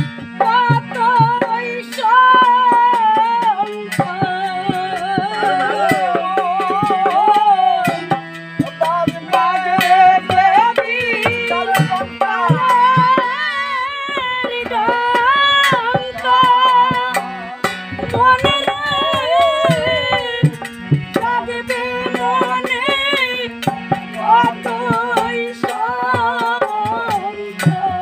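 Woman singing a Bengali folk devotional song (Ramayan gan) in a wavering, ornamented melody, with drum accompaniment and a steady low drone underneath.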